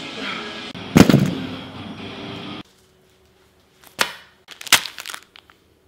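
Background music with one loud, heavy thud about a second in. The sound cuts off abruptly partway through, leaving quiet broken by a few sharp knocks and clicks of things being handled on a kitchen counter.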